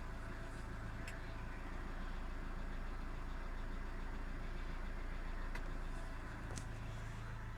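Car engine idling steadily, with a few sharp clicks about a second in and twice near the end. The owner is unsure whether the engine has a knock.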